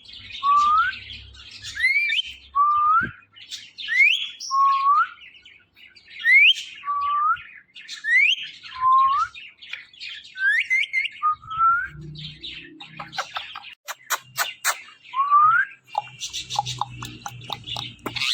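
Green ringneck parrot whistling: a repeated pair of rising whistles, a high one followed by a lower one, about every two seconds. Near the end, several sharp clicks.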